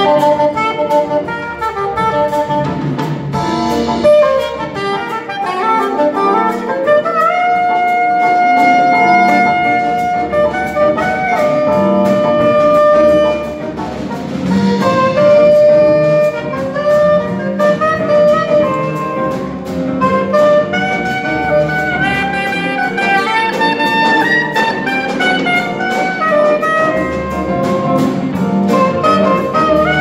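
Live Latin jazz band playing: saxophones carry the melody with several long held notes, over piano, double bass and guitar, with a drum kit keeping a steady beat.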